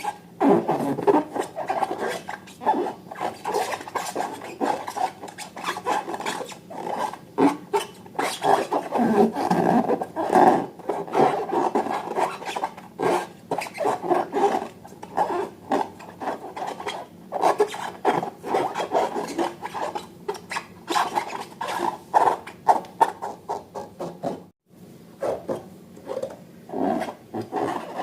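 Irregular rubbing, scraping and squeaking of balloon rubber and slime being worked by hand, with a brief pause near the end.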